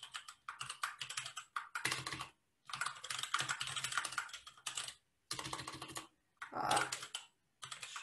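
Computer keyboard typing in quick runs of keystrokes, broken by short pauses.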